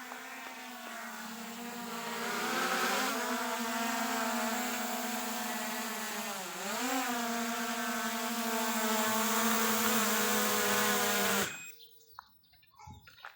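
Steady motor hum with several overtones; its pitch dips and recovers about six and a half seconds in, and it cuts off suddenly near the end.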